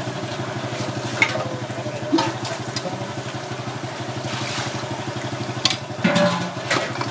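Steady low engine hum with an even, rapid pulse, like a small motor running without a break. A few sharp clicks of a metal scoop and spoon against a bowl come about a second in and near the end.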